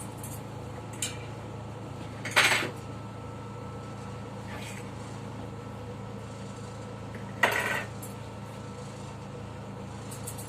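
Electric pet grooming clippers running with a steady hum, with two loud metallic clinks about two and a half seconds in and again near seven and a half seconds, and a couple of fainter clinks between.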